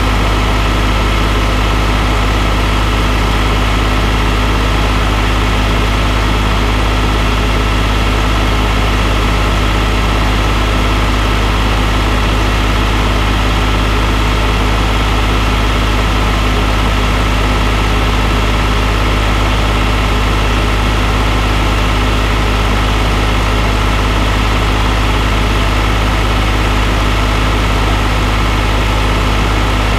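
Green tractor's diesel engine running steadily under load while mowing grass with a disc mower, together with the mower's drive.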